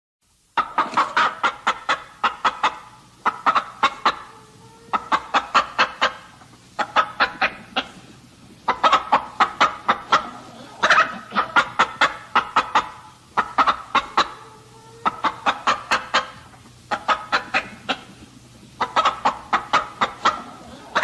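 Chicken clucking: quick runs of short, sharp clucks, a new run about every two seconds, starting half a second in.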